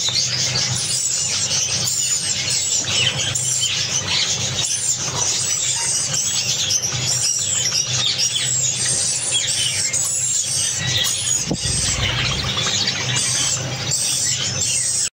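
A flock of white Java sparrows chirping continuously, many short high chirps overlapping one another, over a low steady hum.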